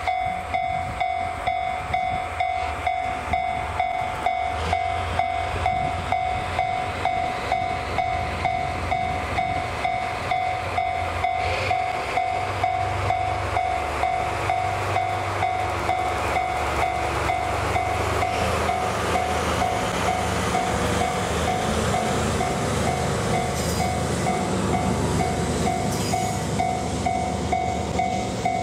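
Railway level-crossing alarm bell pulsing in a fast, even two-tone ring, while the rumble of diesel locomotive engines builds from about halfway as the train approaches.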